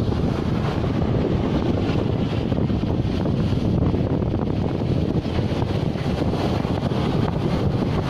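Strong wind buffeting the microphone, over the steady rush of storm waves breaking on the beach.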